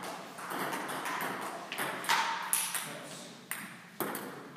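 Table tennis ball being played: several sharp clicks of the ball off bats and the table, spaced irregularly over the seconds.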